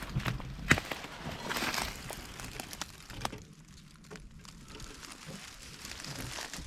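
Footsteps crunching through dry brush and leaf litter, with a sharp snap of a twig breaking underfoot less than a second in; the crunching dies down after about three seconds.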